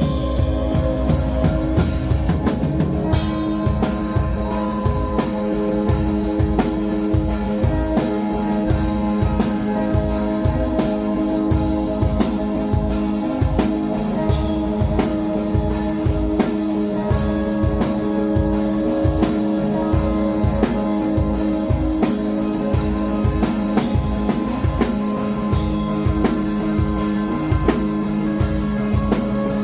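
Background music with a drum kit keeping a steady beat under sustained instrumental notes.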